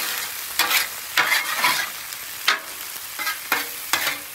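Metal spatulas scraping and tossing tomatoes, olives and peppers across a steel flat-top griddle, with repeated short scrapes every half second to a second. Underneath, the vegetables sizzle steadily in butter.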